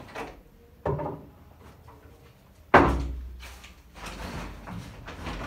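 Two sharp bangs about two seconds apart, the second louder and dying away over a second, then rustling and light clatter as things are moved about while unpacking.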